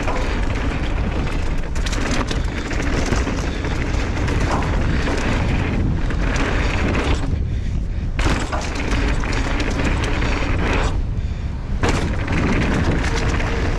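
Mountain bike ridden fast down a dirt jump line, with steady wind rush buffeting the microphone over the rattle of tyres on dirt. Twice, past the middle, the tyre noise drops away briefly while the bike is airborne, and each gap ends in a sharp landing thud; a couple of these jumps were cased.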